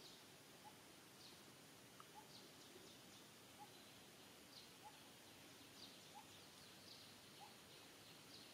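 Near silence: faint outdoor ambience with two faint series of short bird chirps, one high-pitched and one lower and rising, each repeating about once a second.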